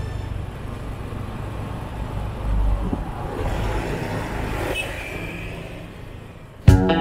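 Street traffic: a steady rush of motorbike and car noise on the road, swelling briefly about two and a half seconds in. Guitar music cuts in suddenly just before the end.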